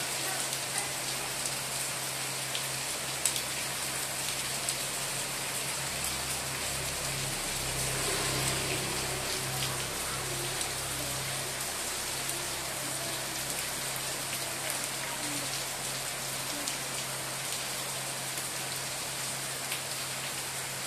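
Steady rain falling: a dense, even patter with scattered sharper drop ticks.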